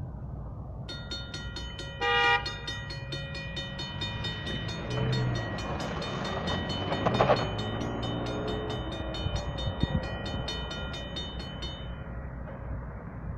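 Norfolk Southern GE diesel freight locomotives passing, engines rumbling, with a short loud blast of the air horn chord about two seconds in. A high, evenly pulsing ringing, about four strikes a second, runs alongside and stops near the end.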